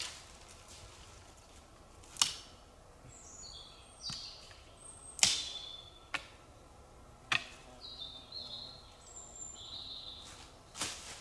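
Songbirds singing short high chirps, with six sharp cracks of twigs and dry leaves under a person's boots on the forest floor, the loudest about two and five seconds in.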